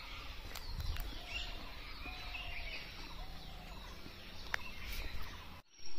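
Birds chirping and calling in the distance, with wind rumbling on the microphone and a few light clicks. The sound cuts out briefly near the end.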